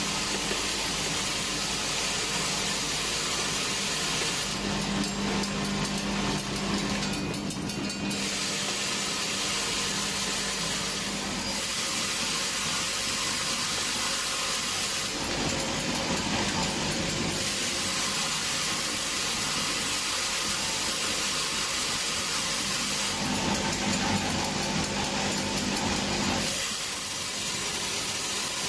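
Automatic nail-and-nylon-anchor assembly machine running: its vibratory bowl feeders rattle the nails and plastic sleeves along their tracks with a steady low hum, under a dense, continuous metallic clatter and hiss.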